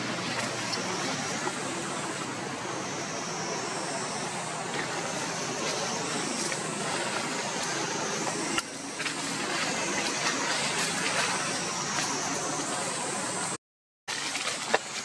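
Steady outdoor background noise with a faint high drone that steps up and down in pitch, and a brief dropout to silence near the end.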